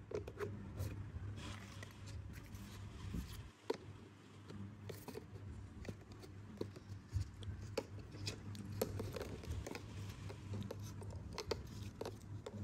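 Hard plastic toy kitchen parts being handled and fitted together: irregular clicks, knocks and scrapes of plastic on plastic, over a low steady hum.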